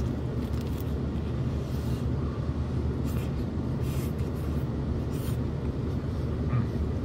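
Steady low rumble inside a car's cabin, with a few faint crackles of chewing and biting into a calzone's crust now and then.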